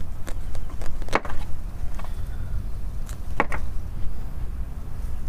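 A small knife cutting through the dense, matted roots of a lemongrass root ball: scattered short, sharp clicks and scrapes, the loudest a little over a second in and two more close together about three and a half seconds in, over a steady low rumble.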